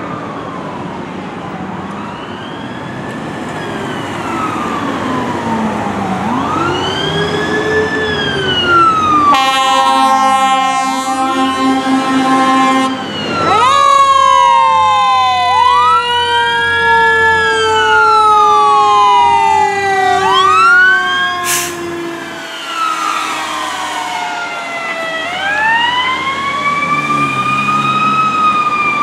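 Fire trucks' sirens wailing, several rising and falling glides overlapping as the ladder truck and engine approach, with one siren winding slowly down in pitch over about ten seconds. An air horn sounds one steady blast of about three and a half seconds, starting about nine seconds in.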